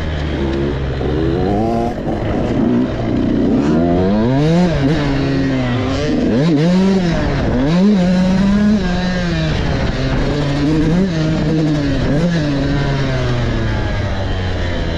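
Dirt bike engine being ridden hard around a dirt track, its revs rising and falling over and over as the throttle is worked on and off.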